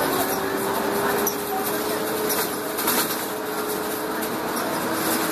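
Cummins L10 diesel engine and ZF four-speed automatic gearbox of a Volvo Olympian double-decker bus running on the move, heard from inside the cabin, with a thin drivetrain whine that rises slightly in pitch and fades near the end.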